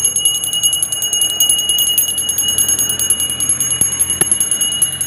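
Puja hand bell rung rapidly and without pause during a vehicle blessing: a steady high ringing made up of quick, even clapper strikes.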